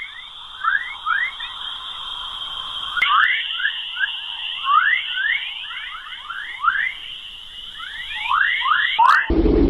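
Spacecraft radio (plasma-wave) recording played as sound: a steady high tone under many short rising chirps, several a second, that rise in quick sweeps like birdsong, the pattern known as chorus waves. A click about three seconds in and another near the end, where the recording changes.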